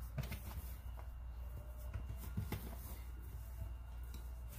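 Faint soft pats and rubbing of hands folding and pressing puff pastry dough on a floured stone countertop, a few light taps scattered through, over a steady low hum.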